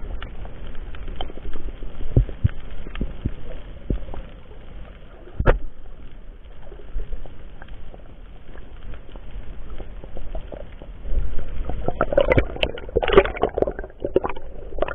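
Muffled underwater sound picked up by a camera in its waterproof housing during a spearfishing dive: a low rumble with scattered clicks and knocks, and one sharper knock about five and a half seconds in. Near the end comes a louder burst of splashing and knocking as the diver comes up.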